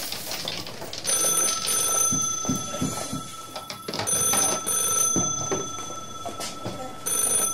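Telephone ringing: a steady, high electronic ring in three spells. The first begins about a second in and lasts about two seconds, a shorter one follows, and a third starts near the end.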